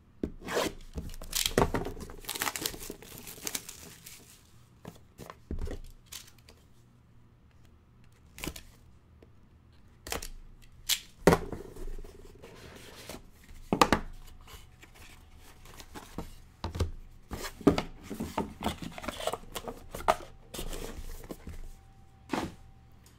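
A trading-card box being unwrapped and opened by hand: wrapping tearing and crinkling in several stretches, with scattered sharp taps and clicks from the cardboard box and cards being handled.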